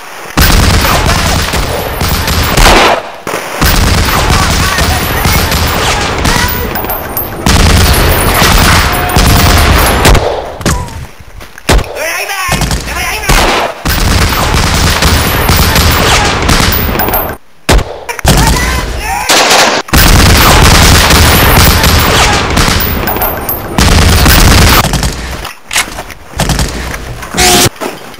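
Heavy battle gunfire: dense rifle and automatic-weapon fire going on in long loud stretches, broken by a few brief pauses.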